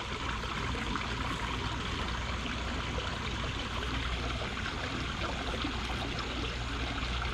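Steady trickle of running water, with a low hum underneath.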